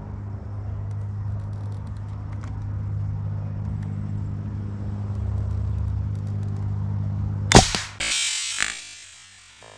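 A single shot from a homemade air-powered rifle about three-quarters of the way through: one sharp crack followed by a hiss that fades over about two seconds. Before the shot there is a steady low hum.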